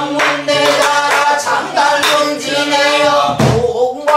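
A woman singing pansori, with long, wavering sung notes, and a low thump from a buk barrel drum near the end.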